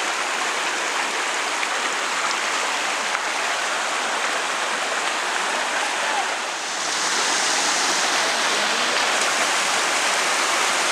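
Steady rush of a rocky stream near a waterfall, which swells a little louder and brighter about six and a half seconds in.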